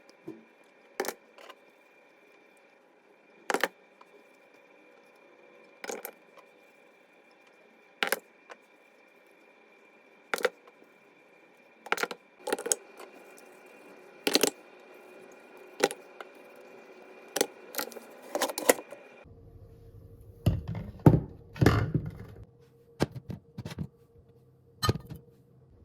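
Hard kitchen items clinking and knocking as they are handled and set down: a single sharp clink about every two seconds, then a busier run of knocks and clatters in the last few seconds.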